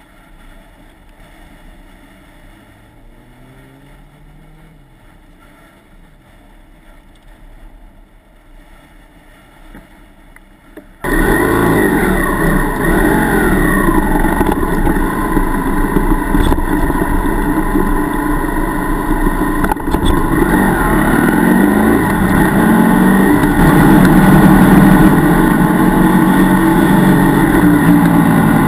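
Faint passing traffic at first. About eleven seconds in, the GS 800 motorcycle's engine comes in suddenly and loud, revving with rising pitch, then keeps running as the bike rides off, with steady hiss from wind on the microphone.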